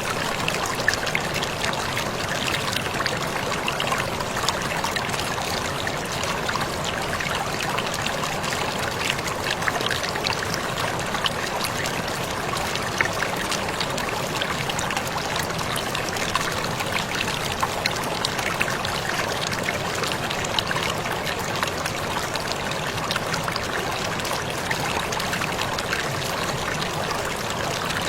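A waterfall pouring and splashing in a steady rush, thick with small sharp splashes and drips.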